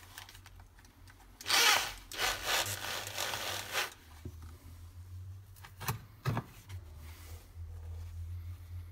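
A scraping rustle for about two seconds, then two sharp knocks a third of a second apart, then a low steady hum. These are handling noises as the stone block and drill are taken up.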